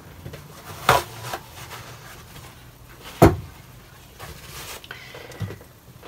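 Two short, sharp knocks from art supplies being handled on the work table, about two seconds apart, the second the louder, with a few fainter taps later.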